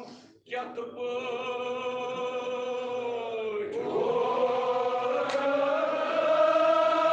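Kashmiri marsiya (mourning elegy) chanted without instruments by men's voices. A single held note slowly falls in pitch, then about four seconds in a group of voices takes up a louder, long sustained chant.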